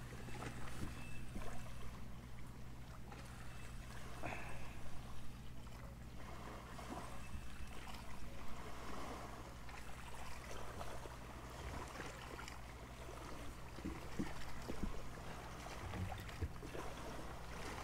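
Faint river ambience: water lapping and trickling gently, over a steady low hum, with a few soft knocks.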